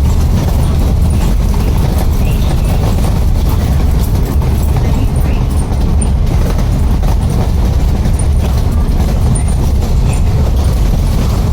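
Bus running under way with a steady, loud, low rumble.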